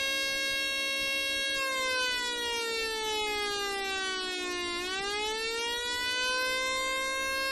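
Electronic 'Brazilian siren' circuit built on a breadboard, played through a bench amplifier's speaker: a buzzy tone with many overtones. It holds one note, then about a second and a half in sinks slowly in pitch for about three seconds before climbing back to the same note. It imitates the old Brazilian police siren.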